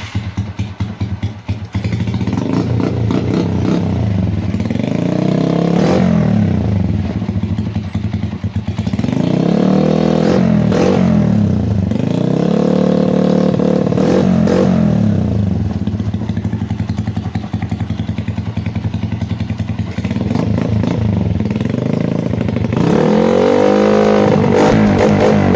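Honda TMX 125 Alpha's single-cylinder four-stroke engine idling through an aftermarket exhaust muffler and being revved about five times, the pitch rising and falling back to idle with each blip of the throttle. The idle is uneven for the first couple of seconds.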